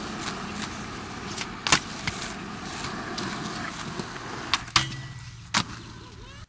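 Skateboard wheels rolling over concrete, a steady grinding rumble, with three sharp clacks of the board. The rolling fades over the last couple of seconds.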